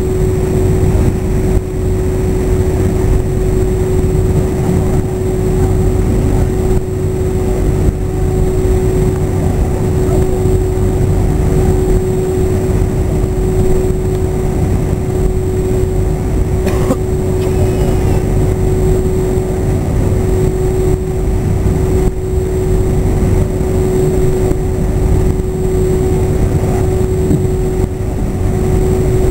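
Airbus A321 cabin noise with the jet engines running steadily: a constant hum over an even low rumble, with no rise in pitch or power, as at taxi.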